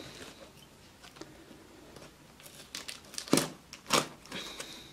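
Pocket knife cutting the packing tape on a cardboard shipping box, with the cardboard handled as it goes: a few short, sharp scraping and tearing strokes in the second half, the loudest about three and a half seconds in.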